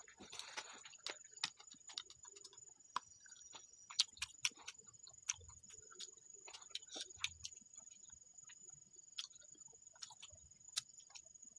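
A person chewing fried frog adobo close to the microphone: irregular sharp clicks, crunches and mouth smacks, with a steady high thin whine underneath.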